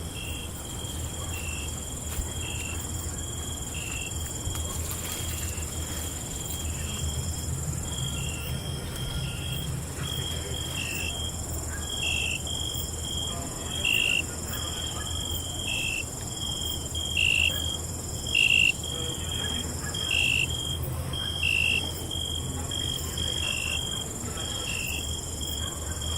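Crickets chirping in a steady high trill, with a shorter repeated chirp about once a second that grows louder in the second half. A low steady rumble runs beneath.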